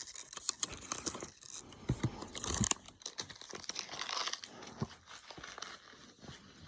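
Baseball trading cards being flipped through by hand: quick papery flicks and crinkles.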